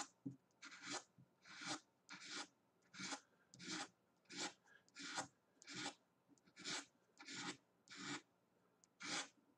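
A bent-out paper clip, its point rounded with sandpaper, scratching faint short strokes into drawing paper, about three strokes every two seconds. It is pressing indented lines into the paper that will stay white as fur hairs under later graphite.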